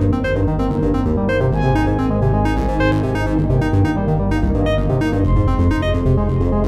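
Several smartphone ringtones and an alarm tone playing over one another: a dense mix of synth and electric-piano melodies over a steady low bass.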